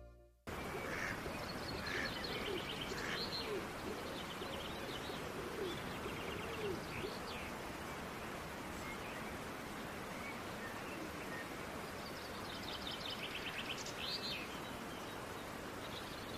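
Open-air ambience with birds calling: a steady hiss of outdoor noise that starts suddenly about half a second in, with rapid high chattering calls near the start and again near the end, and lower arching calls repeating through the first several seconds.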